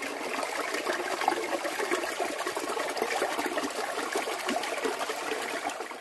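Shallow forest stream babbling and trickling over rocks: a steady running-water sound with many small splashes.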